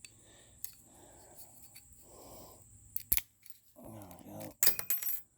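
Sharp metal-and-plastic clicks and cracks from prying at a part stuck fast on an old computer CPU, ending in a dense burst of cracking as part of it breaks off. A brief strained grunt comes just before the final cracks.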